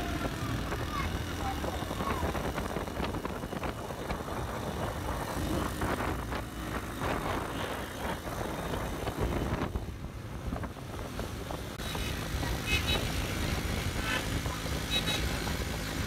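Street traffic noise from a slow road procession: car and motorcycle engines running, with voices in the background and a few short high tones near the end.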